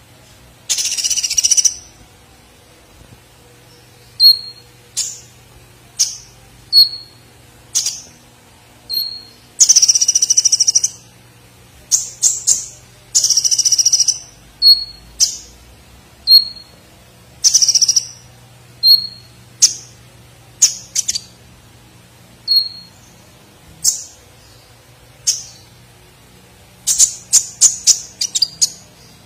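Caged male van Hasselt's sunbird (kolibri ninja) singing: short sharp chirps about every second, broken by several longer buzzy trills and a rapid run of notes near the end. Its song carries learned 'platuk' (woodpecker-style) phrases.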